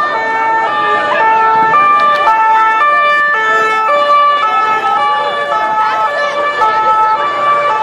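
Two-tone emergency-vehicle sirens alternating between a high and a low note about twice a second, more than one sounding at once slightly out of step. This is the French 'pin-pon' type.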